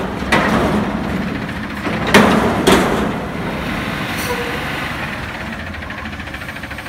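2010 Autocar front-loader garbage truck with a McNeilus body dumping a steel commercial dumpster over its cab: the bin and its lids bang three times in the first three seconds as it is shaken out at the top of the lift. The diesel engine then runs steadily under hydraulic load as the arms lower the empty bin.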